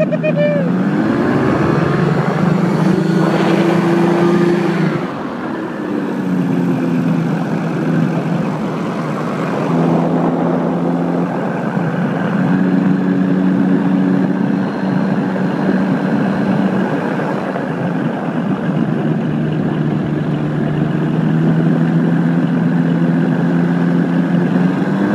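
Paramotor engine and propeller running steadily in flight, its pitch shifting a few times and dipping briefly about five seconds in.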